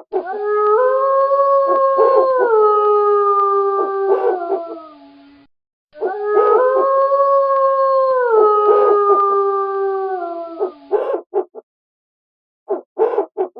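A pack of wolves howling together: two long howls of about five seconds each, several voices overlapping, each holding a steady pitch and then stepping down, with short yips between them and near the end.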